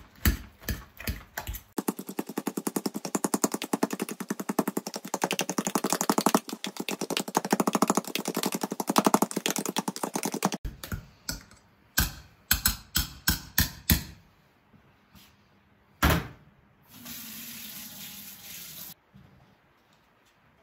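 Wire potato masher pounding boiled potatoes with butter and cream in a stainless steel saucepan: a few separate strokes, then a fast dense run of strokes for about nine seconds, then a handful of separate knocks. A short hiss near the end.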